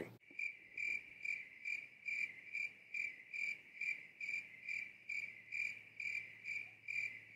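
Cricket chirping: an even chirp repeating nearly three times a second at a steady pace.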